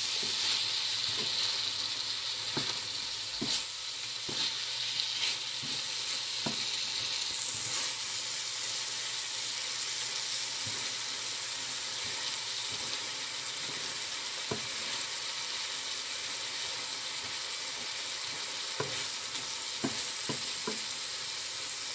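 Mixed vegetables sizzling steadily in a hot frying pan, the sizzle a little stronger in the first several seconds. A wooden spatula stirs them, with now and then a sharp tap or scrape against the pan.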